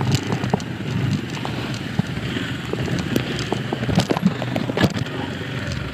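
ATV engine running steadily while riding, with frequent sharp knocks and rattles scattered through it.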